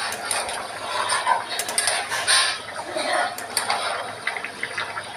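A spatula scraping and clinking against a metal pan while stirring a thin egg-and-potato curry, with scattered sharp clicks.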